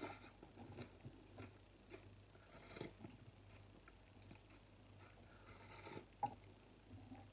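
Quiet slurping of hotpot broth from a spoon, three slurps (at the start, about three seconds in and about six seconds in), with soft chewing and small clicks between them.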